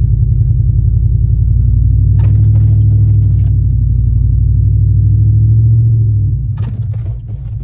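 Deep, steady rumble inside a moving car, engine and road drone; it swells a little midway and drops off about six and a half seconds in.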